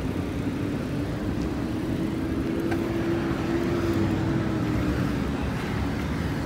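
Wind rumbling on the microphone and road noise from a bicycle being ridden, steady throughout. A low engine drone swells from about a second in and fades out after about five seconds.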